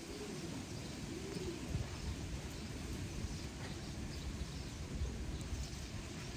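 Dove cooing softly, two drawn-out coos in the first two seconds, over a low steady rumble.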